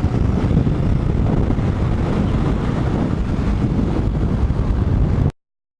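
Wind buffeting the microphone on a moving motorcycle, a dense low rumble with the engine buried underneath; it cuts off suddenly near the end.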